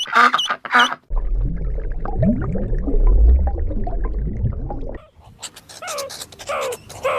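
A duck quacking rapidly for about a second. Then a loud low rumble with a few short, low rising-and-falling animal calls in it for about four seconds. Near the end, crows cawing.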